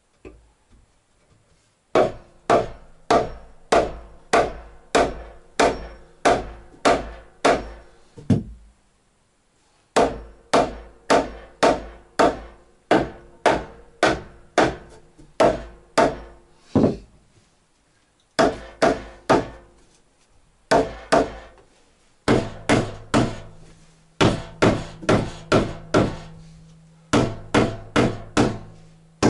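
Hand hammer driving into a wooden board, about two blows a second, in several runs with short pauses between them; each blow rings briefly.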